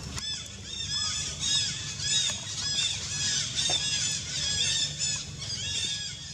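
Animal calls: a rapid run of short, high-pitched squeals that rise and fall, a few each second, thinning out near the end.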